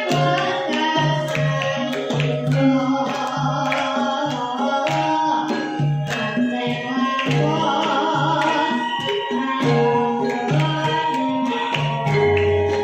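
Javanese gamelan music: held, ringing metallophone tones over a steady low hand-drum beat, about two strokes a second. A girl's singing voice wavers over the ensemble twice, around three seconds in and again near eight seconds.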